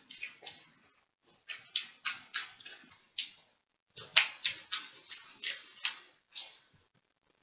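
A deck of tarot cards being shuffled by hand: rapid, crisp papery flicks and slaps in two runs with a short pause between them.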